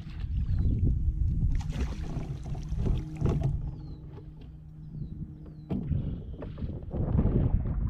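Wind rumbling on the microphone and water moving around a kayak, with scattered knocks and a burst of splashing hiss about two seconds in. A steady low hum runs underneath and stops about six seconds in.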